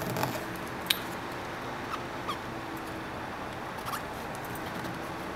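A small card rubbed and pressed across a mirror screen protector film on a phone screen to push out air bubbles: a few faint squeaks and scrapes, with one sharp click about a second in, over a faint steady hum.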